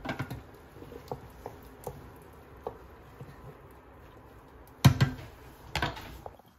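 Kitchen clatter of utensils and dishes while pasta is being served: scattered light clicks and taps, a sharp knock about five seconds in, and another short clatter just after.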